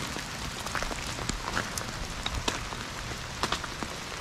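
Steady rain falling, with scattered louder drips tapping at irregular times.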